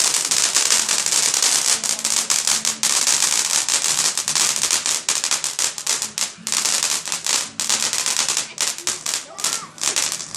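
Fireworks crackling: a loud, dense, rapid crackle of many small pops that runs almost without a break, thinning briefly twice.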